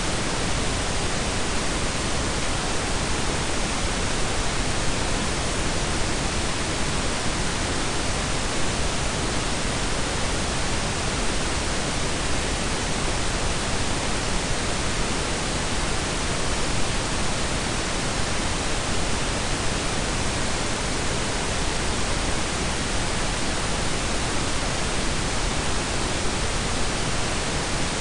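Steady synthetic pink and brown noise blended together: an even, unchanging hiss with a deep rumble underneath.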